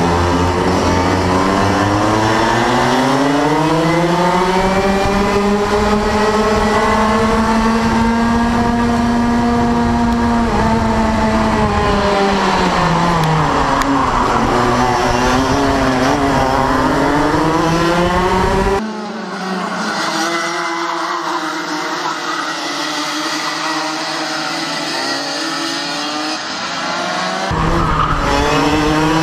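Racing kart engine heard from an onboard camera, revving up through the gears with a rising pitch, holding high, then dropping about twelve seconds in as it slows for a corner before rising again. About nineteen seconds in the sound changes abruptly to a quieter, thinner engine note, and the full engine sound comes back near the end.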